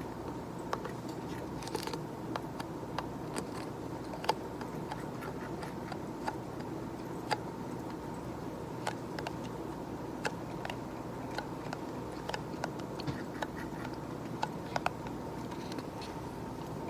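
Sparse, irregular light clicks and taps over a steady background hum with a faint high-pitched tone.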